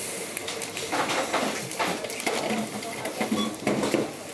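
Supermarket checkout sounds: goods being handled and set down with light clatter and clicks, and one short electronic beep from a barcode scanner about three seconds in.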